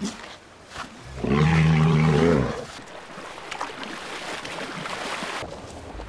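A walrus gives one deep bellow about a second in, lasting about a second and a half. A steady hiss of background noise follows and cuts off near the end.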